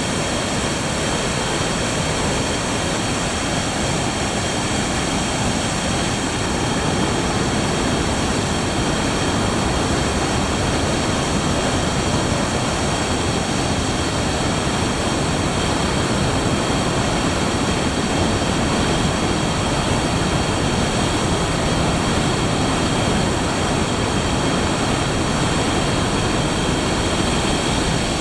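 Floodwater pouring through the open spillway gates of a hydroelectric dam: a steady rush of water from a large flood release after heavy typhoon rain.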